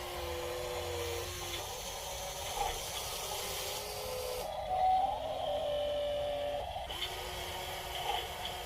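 Small electric motors of a 1:16-scale RC excavator whining as it works, the pitch stepping up and down as different movements start and stop, with a brief rising whine about halfway through.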